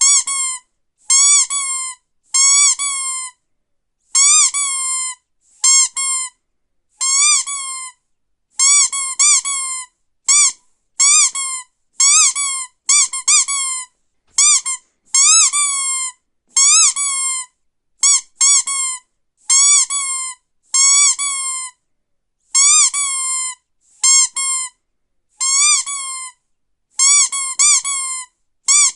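Rubber squeaky dog toy squeezed over and over: short, high squeaks, often two or three in quick succession, with brief silent gaps between.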